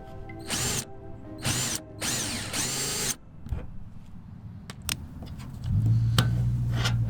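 A power drill run in three short bursts, its pitch rising and falling with each trigger pull, while drilling a hole for the quick-latch mount. Scattered clicks follow, and a steady low hum starts near the end.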